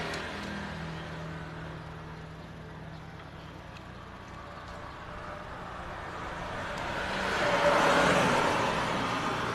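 Passing road traffic: a low engine hum fading away in the first second, then a vehicle's noise swelling to a peak about eight seconds in and fading again. A few faint clicks sit under it.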